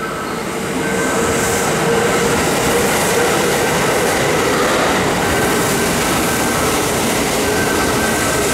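Kintetsu electric commuter train running in along the station platform close by: a loud steady rumble of wheels on rail that builds over the first couple of seconds, with a steady whine underneath and fainter high squealing tones that come and go.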